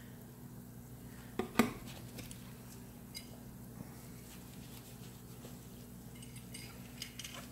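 An aluminum part clinking sharply twice against a plastic bin and its wire hanger as it is set back into caustic soda solution, about a second and a half in, followed by a few light taps over a faint steady hum.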